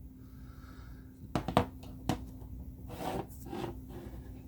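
Hard plastic toy figure parts being handled: a few light clicks and taps, irregularly spaced, mostly in the middle of the stretch.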